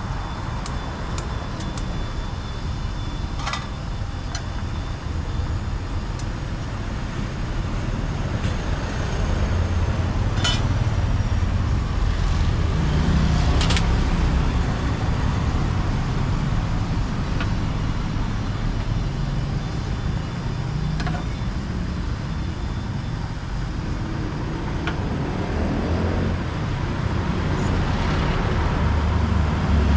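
Road traffic running past, a steady low rumble that swells twice as vehicles go by, with a few sharp clicks over it.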